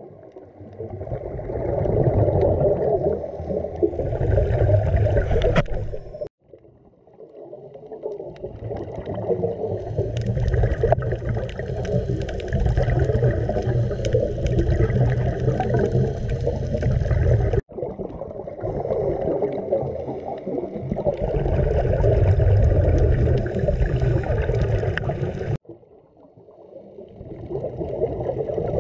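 Muffled underwater rumble and gurgle of water and scuba exhaust bubbles, picked up through a camera's underwater housing. The noise swells over a few seconds and cuts off abruptly three times.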